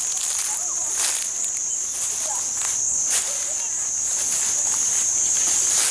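A steady, high-pitched drone of insects, cicadas or crickets, with a few rustling steps through undergrowth.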